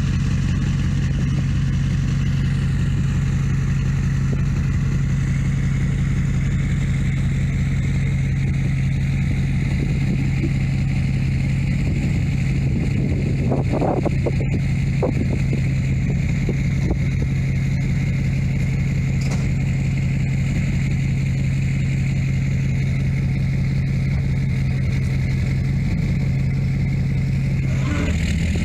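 Pickup truck engine running steadily at one constant pitch. A few faint clatters come about halfway through.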